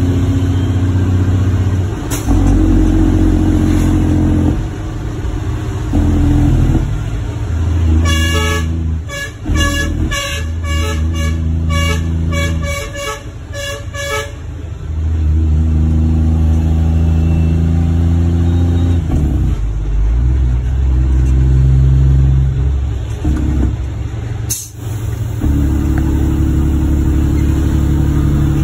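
Truck's Cummins ISM inline-six diesel running, its pitch shifting down and up in steps. Near the middle, the horn is sounded in a rapid run of short toots lasting about six seconds.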